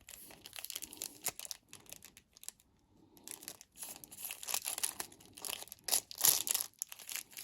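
Packaging crinkling and tearing in irregular bursts as makeup brushes are unwrapped by hand. It goes quiet for about a second, then is busiest near the end.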